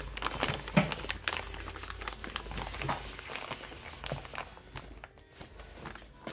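Insulated lunch bag being handled by hand: its fabric and lining rustle and crinkle, with scattered taps and clicks. The handling is busiest in the first four seconds and quieter after.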